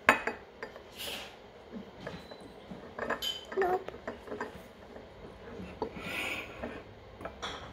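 Light clicks and clinks of small hard objects being handled and set down, with a sharp tap right at the start and a few more scattered taps after it.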